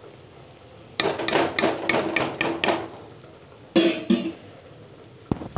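A metal spatula or slotted spoon knocking against the rim of a metal kadai, about seven quick ringing knocks, then two more a second later.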